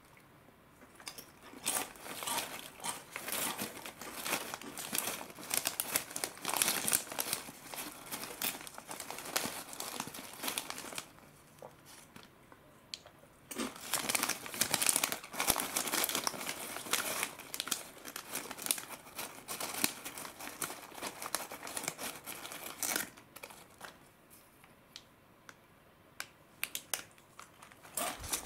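Foil-lined bag of Ottotto snacks crinkling as fingers rummage through the small crunchy pieces inside, in long bursts of crackly rustling. It stops for a couple of seconds about eleven seconds in, and goes quiet again near the end before more crinkling.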